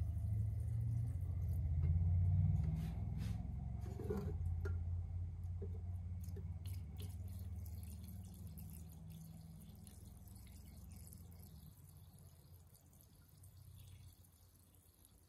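Mineral spirits pouring and gurgling out of a metal can into a drained gearbox, the flow tapering off and fading toward the end. A few light knocks come a few seconds in.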